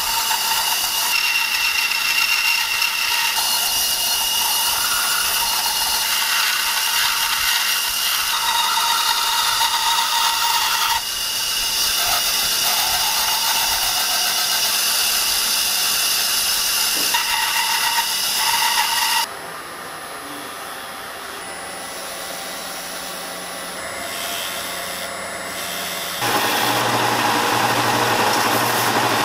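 A scroll saw with a fine blade cutting thin brass plate along a paper pattern: steady, loud machine noise with a high whine, shifting abruptly several times and going quieter about two-thirds of the way in. Near the end a belt sander runs, louder, with a low hum under it.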